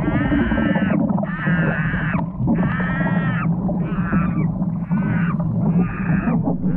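A series of six high, pitched cries, each just under a second long and evenly spaced, over a steady low hum.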